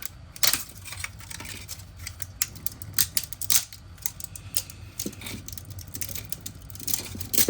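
A run of irregular light clicks and taps, like hard plastic being handled, with a few louder snaps about half a second in and around three seconds in, over a faint steady low hum.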